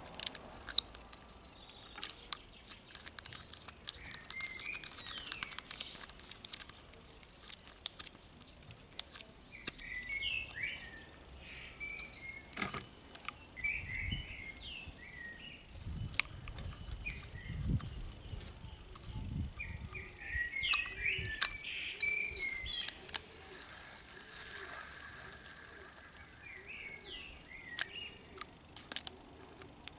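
Small birds chirping in short bursts in the background, with scattered sharp clicks and taps as a Shakespeare Agility FD spinning reel is handled, its handle fitted and turned.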